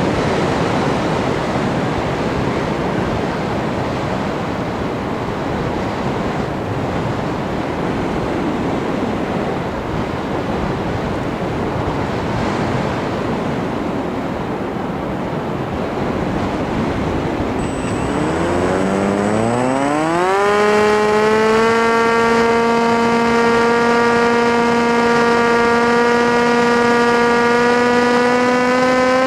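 A steady rushing noise, then about 18 seconds in an FPV model aircraft's electric motor whine rises quickly in pitch and holds at a steady high pitch as the throttle goes up.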